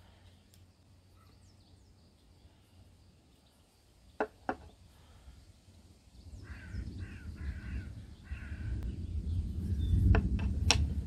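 Painted pebbles clicking as they are handled and set down on a tabletop. A low rumble builds in the second half. A few short, harsh bird calls come in the middle.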